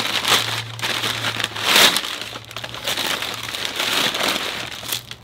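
Packing paper crumpling and rustling in uneven bursts as it is pulled off and pushed aside to unwrap an item from a box.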